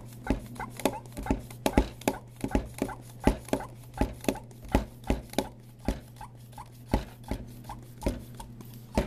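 Handling noise from the Nerf Wildfire's clear hard-plastic air tank being turned over in the hands and set against a wooden tabletop. It is a long run of sharp, irregular clicks and knocks, about two to three a second.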